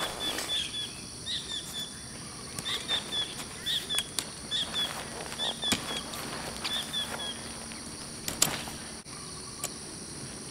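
A run of short chirping calls, several a second, over a steady high insect drone. The chirps stop about seven seconds in, and one sharp click comes near the end.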